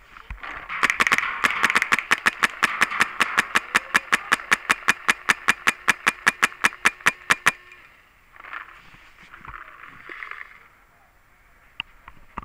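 DP G5 paintball marker firing a long rapid string of shots, about six a second for some seven seconds, then stopping. A few short bursts of rustling follow as the shooter moves.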